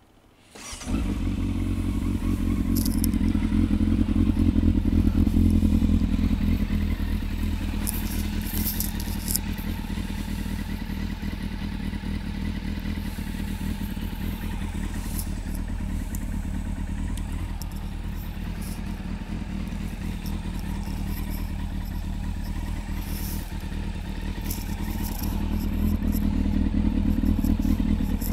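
A Yamaha FZS600 Fazer's 600 cc inline-four catches about half a second in and then idles steadily through an aftermarket Laser silencer that is not a straight-through pipe.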